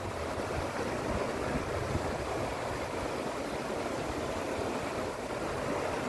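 The Soča river rushing fast over boulders through shallow rapids: a steady, even rush of water.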